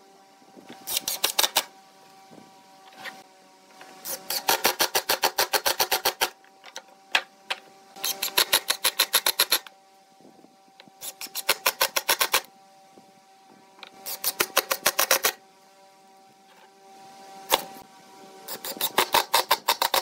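Makita cordless impact driver driving screws into wooden boards: about six bursts of rapid hammering clicks, each a second or two long, with short pauses between them.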